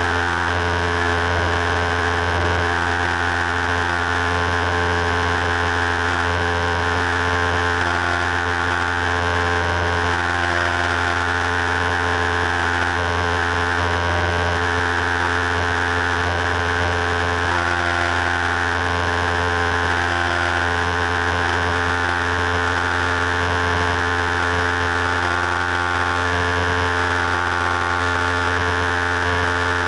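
Single-engine piston airplane's engine and propeller running steadily, heard from inside the cockpit, with no change in pitch.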